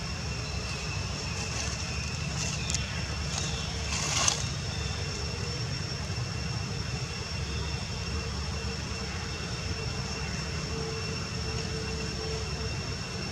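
Steady low outdoor rumble with two faint, thin high tones held throughout. A few short clicks come around two to four seconds in, the loudest a sharp sound just after four seconds.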